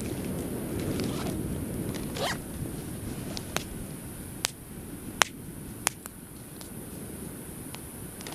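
A bag's zipper being pulled and things rustling inside the bag during the first couple of seconds. Then four sharp pops from the bonfire come over the next few seconds.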